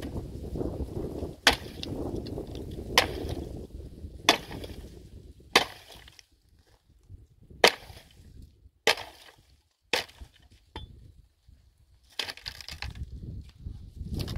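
Firewood being chopped with an axe: seven sharp wooden strikes, roughly one every second and a half, then a pause near the end.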